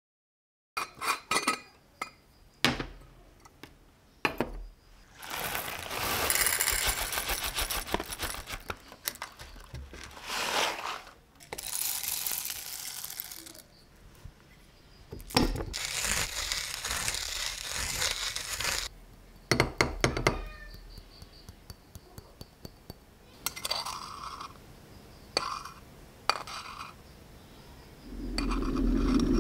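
Coffee being made by hand: metal clinks from a stainless moka pot and a hand coffee grinder, then three long stretches of gritty grinding as coffee beans are ground in the hand grinder. After that come light clinks and scraping as the grounds are levelled in the moka pot's basket with a knife, and a low steady hum starts near the end.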